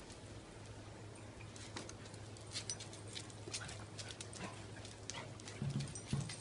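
Two young Formosan mountain dogs playing on a hard patio floor: scattered quick clicks and scuffs of claws and paws, with a few louder low thuds near the end.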